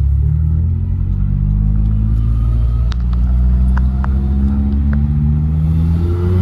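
Nissan S14's turbocharged SR four-cylinder engine running with a deep, steady note, its revs climbing gently under light throttle and easing off near the end before rising again. A few sharp clicks come midway.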